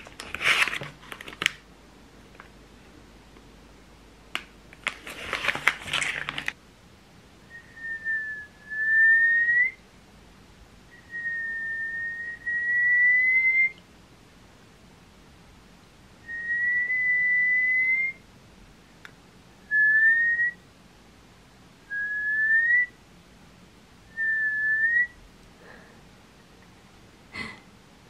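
A plastic noodle packet crinkling in the hands during the first few seconds. Then a person whistling about seven short single-note whistles, a second or two apart, each sliding upward at its end.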